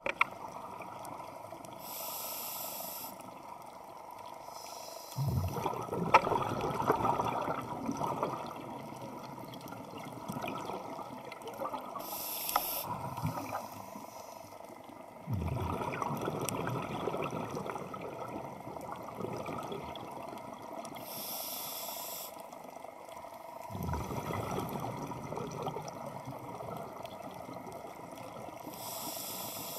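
Scuba diver breathing through a regulator underwater. A short hiss of inhalation is followed a few seconds later by a long rush of exhaled bubbles, and the cycle repeats about every nine to ten seconds.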